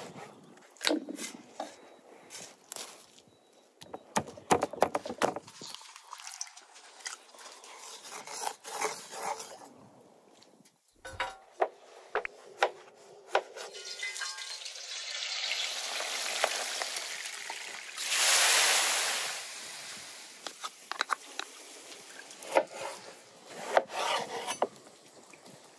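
A kitchen knife cutting through sturgeon pieces and citrus fruit, its blade knocking sharply again and again on a wooden cutting board. About two-thirds of the way through, a rising hiss builds for several seconds and is loudest for a moment before fading.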